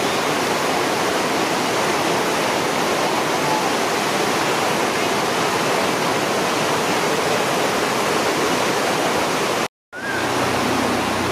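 Upper Nantahala River whitewater rapids rushing steadily and loudly at a 425 cfs release. The sound cuts out abruptly for a moment near the end, then the rushing resumes.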